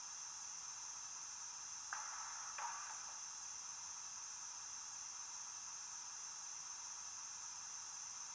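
Stationary-steam sounds from a Loksound 5 micro DCC sound decoder in a Bachmann USA Tank model, played through a sugarcube speaker: a steady faint hiss of the engine simmering, with two brief louder bursts about two seconds in.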